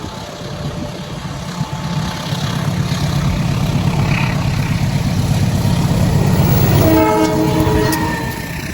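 Diesel locomotive hauling a train, its engine rumble growing louder as it approaches. About seven seconds in, its horn sounds once for about a second.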